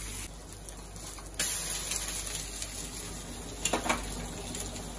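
Chicken salami slices and an egg sizzling in oil in frying pans: a steady hiss that weakens briefly and comes back strongly about a second and a half in. A couple of light clicks near the end.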